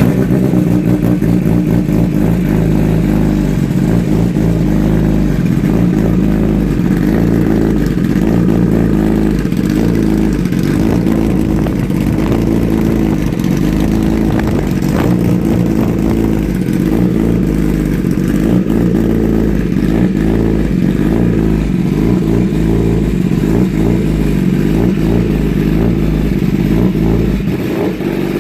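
2016 Kawasaki ZX-10R inline-four running steadily just after start-up through an Austin Racing GP1R race exhaust with the catalytic converter eliminated, very loud.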